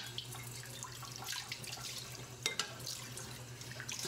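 Kitchen tap running into a stainless steel sink while dishes are washed by hand, with a few light clinks of dishware being handled.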